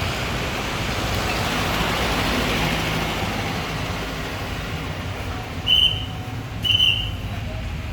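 Road traffic passing, a steady rumble and hiss, with two short high beeps about a second apart near the end.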